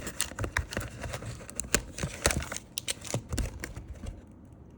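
Handling of a trading-card booster pack and its cards: irregular crinkles and small clicks of foil wrapper and card stock, dying down about four seconds in.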